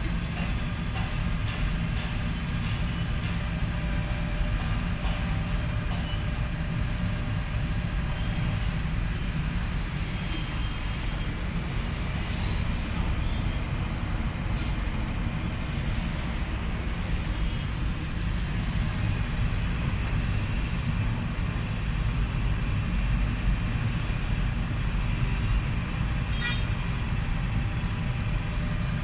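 Heavy earthmoving machinery at work: a deep, steady diesel rumble with metal squealing and clanking, and several short bursts of hiss about a third of the way through.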